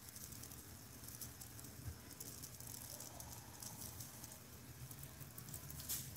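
Faint, soft patter of fine glitter shaken from a shaker bottle and landing on a tumbler.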